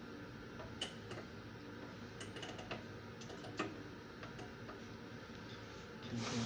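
Scattered light clicks and taps of hands handling the metal specimen holder and knobs inside the chamber of a Leica Jung Frigocut 2800E cryostat microtome, over a faint steady hum.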